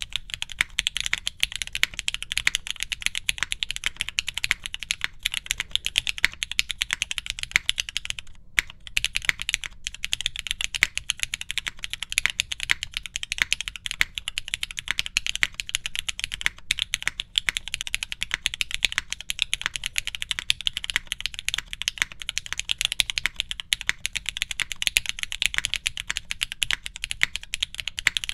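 Continuous fast typing on a SingaKBD Kohaku gasket-mount mechanical keyboard fitted with frankenswitches (Cherry MX top housings, SP Meteor Grey bottom housings) and GMK keycaps. The key clacks run as a dense stream, with a short pause about eight seconds in.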